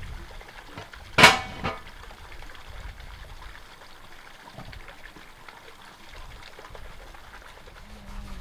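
A sharp metallic clang with a short ring about a second in, followed by a lighter knock, as a large metal cauldron and its lid are handled on a wood-fired stove; otherwise only faint background noise.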